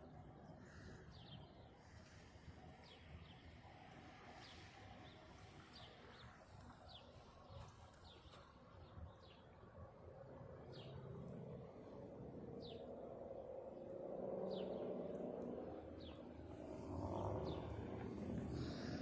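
A bird chirping repeatedly, short downward chirps about once a second, over a low, unidentified noise that swells and grows louder in the second half.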